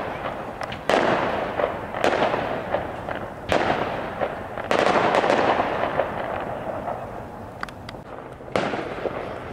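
Aerial fireworks shells bursting: five sharp bangs at irregular intervals of one to four seconds, each trailing off over a second or more, with a few small pops near the end.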